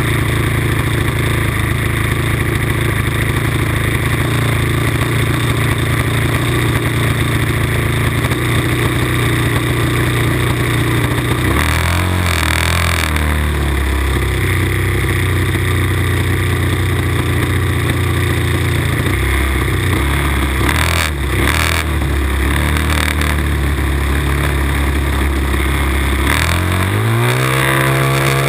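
RC Cub model airplane's engine idling on the ground, heard from inside the fuselage. About twelve seconds in it settles to a lower idle, and near the end it revs up sharply as the throttle opens for the takeoff run.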